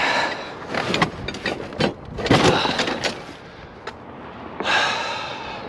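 A man grunting and breathing hard with strain as he heaves heavy scrap metal, three long effortful exhalations, with sharp knocks and clanks of metal in between.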